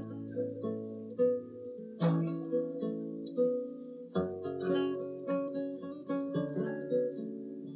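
Background music on a guitar: notes picked in a steady pattern, with heavier strummed chords about two and four seconds in.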